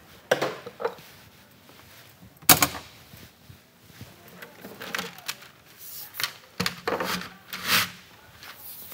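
Handling noise at a workbench as tools are set down and a coiled conduit snake is gathered up: scattered knocks, clatters and rustles, the loudest a sharp knock about two and a half seconds in.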